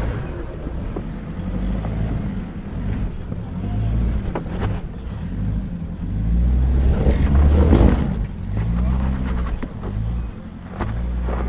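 Turbo-diesel 4WD engine working under load as the vehicle crawls up a rock step, its revs rising and falling, loudest about seven to eight seconds in. A few sharp knocks stand out along the way.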